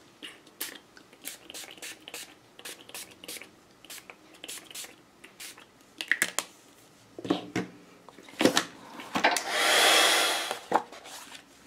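Pump spray bottle of Glimmer Mist spritzed again and again in short hisses. Near the end a heat gun blows for about a second and a half, louder than the spritzes, to dry the sprayed paper.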